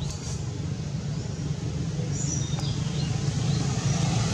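Steady low rumble of a motor vehicle engine running, growing louder toward the end, with a few faint high bird chirps in the first half.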